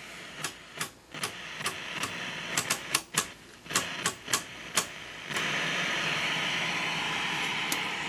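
Rotary channel tuner knob of a 1971 Zenith color television clicking through its detents, a dozen or so clicks at two to three a second. About five seconds in, a steady hiss of static comes up from the set's speaker, which has no station tuned and shows only snow.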